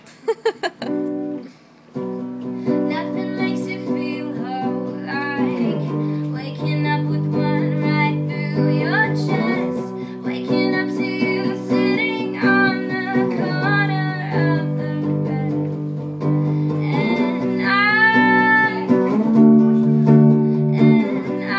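A woman singing to her own strummed hollow-body electric guitar. A few short strums come about a second in, then the steady chords and the singing begin about two seconds in.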